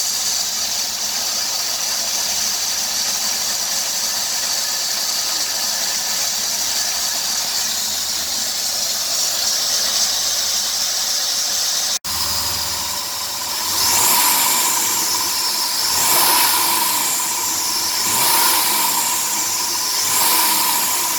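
Hissing squeal from the engine bay of a 2003 Dodge Grand Caravan's 3.3-litre V6, steady at first; after a cut about halfway through, the engine is revved four times and the squeal rises and falls with each rev. The noise quiets when the belt is sprayed with water, and the owner suspects a worn drive belt, though it also reminds him of a vacuum leak.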